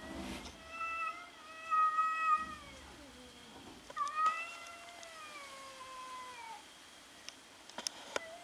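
Cats yowling during a standoff: two long, drawn-out calls, each a couple of seconds long, the second sliding down in pitch toward its end. A few short clicks come near the end.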